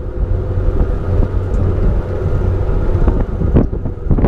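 Boat motor running steadily under way, a low drone, with wind buffeting the microphone.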